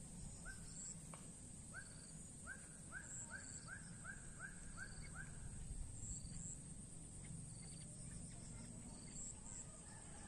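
A bird calling a run of about ten short notes that come faster and faster, stopping about five seconds in. Under it are a steady high insect drone and a thin high chirp repeating about once a second.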